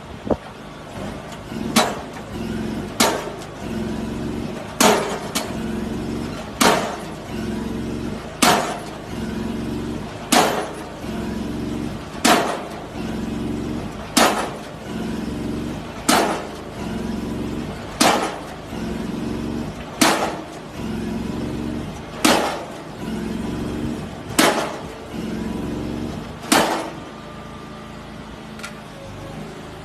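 Diesel pile hammer striking the head of a precast concrete pile, a sharp loud blow about every two seconds, over the steady running of machinery. The blows stop near the end, leaving only the machinery's hum.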